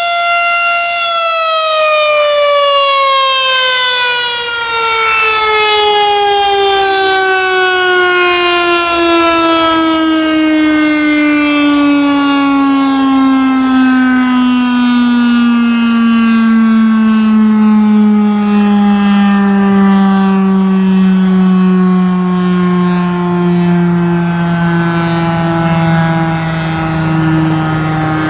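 Federal Signal STH-10 outdoor warning siren sounding a single loud tone that holds steady for about a second and then winds down, its pitch falling slowly and smoothly as the rotor coasts to a stop at the end of the test signal.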